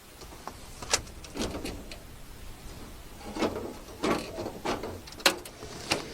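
Irregular sharp clicks and knocks with short rustling scrapes between them, as of things being handled; the sharpest knocks come about a second in, just after five seconds and near the end.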